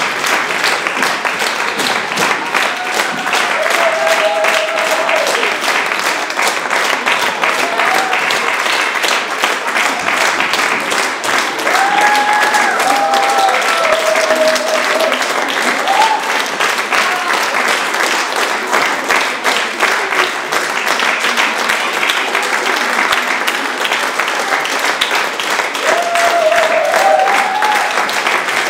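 Theatre audience applauding steadily, a dense clapping with a few held cheering calls rising over it now and then.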